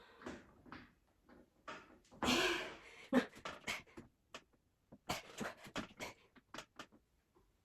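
A person breathing hard during an exercise set: a heavy breath about two seconds in, then quick, sharp panting exhalations in short runs.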